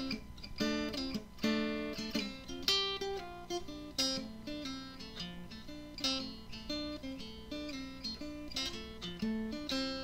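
Background music on acoustic guitar: plucked and strummed chords, a new chord or note about twice a second.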